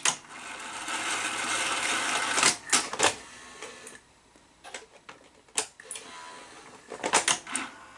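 Sony SL-5000 Betamax VCR's tape transport whirring for about two and a half seconds, then a run of sharp mechanical clicks and clunks, several close together near the end.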